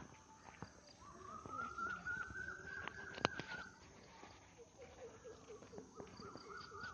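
Animal calls: one long wavering call lasting a couple of seconds, then a run of short repeated calls, about three a second. A single sharp click about three seconds in.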